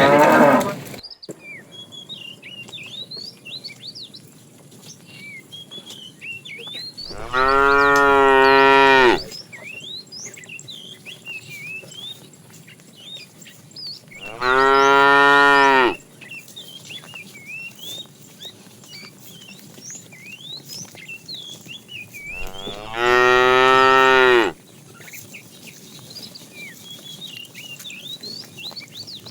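Cattle mooing: three long, drawn-out moos several seconds apart, each lasting about two seconds, after the tail end of another moo at the very start.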